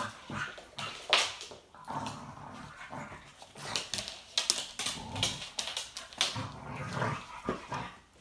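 Puppies play-fighting, with short yips, whimpers and barks coming irregularly.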